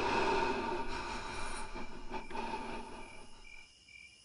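Crickets chirping in short, even pulses. A dense rushing noise fades out underneath them over the first three seconds.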